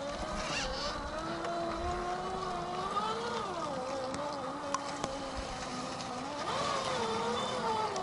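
RC4WD Trail Finder 2 scale crawler's electric motor and geared drivetrain whining as it crawls up a steep rock, the pitch rising and falling with the throttle as the truck struggles for grip. A few sharp clicks sound over the whine.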